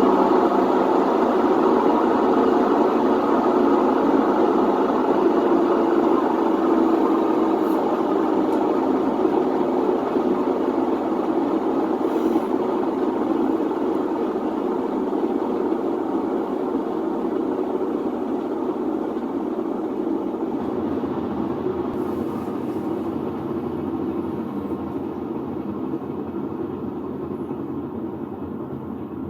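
A Whirlpool WTW4950XW3 top-load washer's drum spinning with a steady loud mechanical noise that slowly gets quieter; the noise comes from the washer's worn drum bearings.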